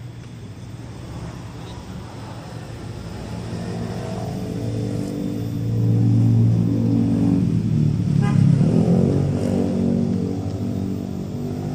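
A motor vehicle engine running close by, growing louder toward the middle and then easing off.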